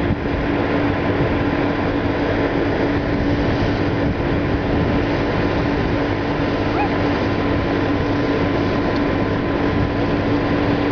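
Steady rumble with a constant low hum, like a machine or engine running, and a couple of faint short chirps about four and seven seconds in.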